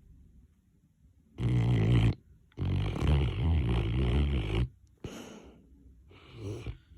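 Mastiff snoring in its sleep: two loud snores, the second longer, followed by two softer breaths near the end.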